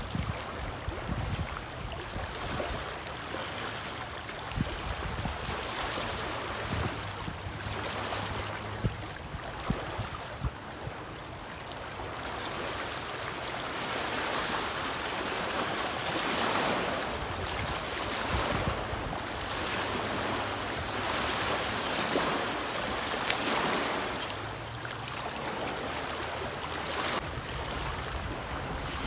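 Lake waves splashing and lapping against a rocky shoreline, swelling and falling back every couple of seconds, with wind rumbling on the microphone.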